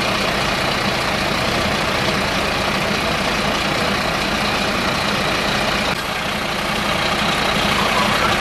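Fire engine's diesel engine running steadily while it drives the pump feeding the hoses, a little louder over the last two seconds.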